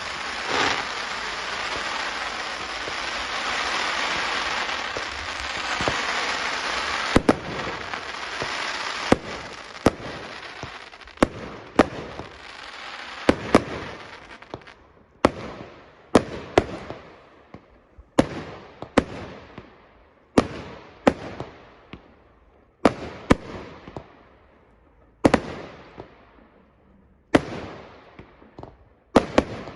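Fireworks display: a dense, continuous crackling with a few sharp bangs through it, giving way about halfway through to a string of separate sharp bangs, roughly one to two a second, each trailing off in an echo.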